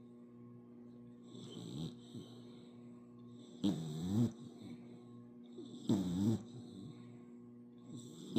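Puppy snoring in its sleep: four snores about two seconds apart, the first faint, each with a pitch that bends up and down.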